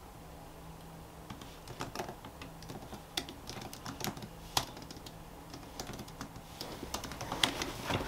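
Typing on a laptop keyboard: a run of quick, irregular key clicks that begins about a second in.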